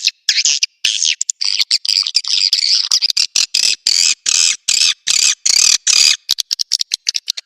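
Recorded swiftlet calls played as a lure sound for a swiftlet house: high, chittering twitters in quick runs, cut short with clean gaps between. Near the end they give way to a fast series of short clicks.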